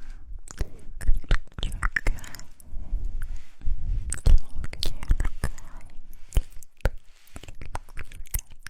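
Close-miked ASMR mouth sounds: a quick, irregular run of lip and tongue clicks and smacks.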